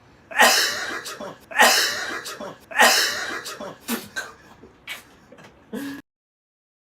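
A person sneezing loudly three times in a row, about a second apart, followed by a few shorter, quieter breaths or sniffs. The sound cuts off suddenly about six seconds in.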